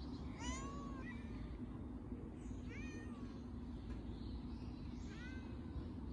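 Street cat meowing three times, the first meow the longest and arching up then down, over a steady low hum.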